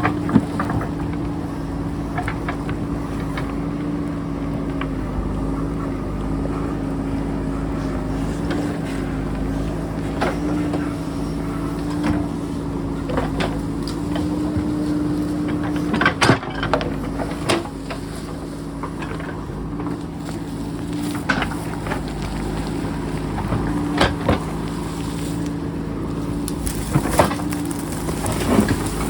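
JCB backhoe loader's diesel engine running steadily under load, its pitch shifting slightly, with scattered sharp knocks and clatters of the bucket working rock, the strongest about halfway through and several more near the end.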